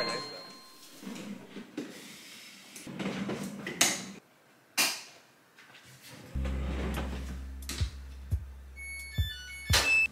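Scattered clicks and knocks of a laundry-room door and laundry being handled, under soft background music that comes in about six seconds in. Near the end a front-loading washer's control panel gives a quick run of electronic beeps as it is set.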